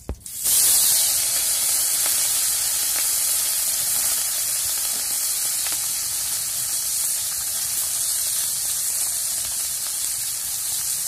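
Small turmeric-and-chili-coated puti and tangra fish frying in hot oil in an iron karai: a loud, steady sizzle that starts suddenly just after the start.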